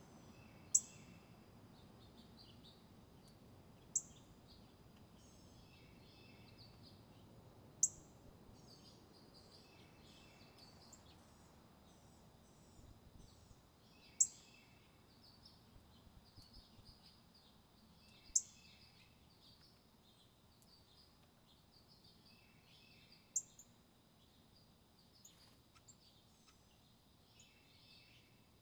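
Small wild birds calling: a sharp, very high chip repeated six times at uneven gaps of about four to six seconds, over softer twittering. A steady thin high tone runs underneath.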